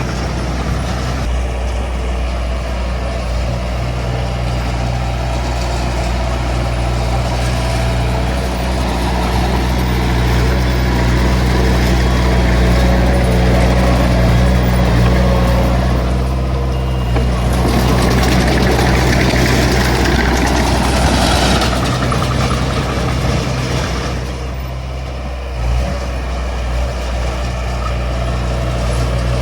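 D20 crawler bulldozer's diesel engine running steadily while working. It grows louder about halfway through and eases briefly near the end.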